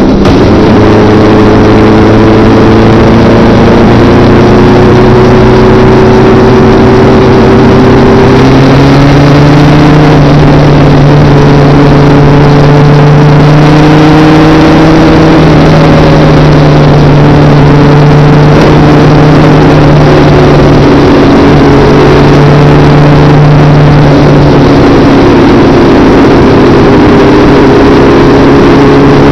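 Motorcycle engine running on the road, with loud wind rush on a bike-mounted camera; the engine note slowly climbs and drops several times as the bike changes speed.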